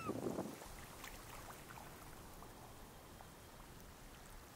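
Faint water lapping with a few small drips or ticks; a louder rush of water at the start dies away within about half a second.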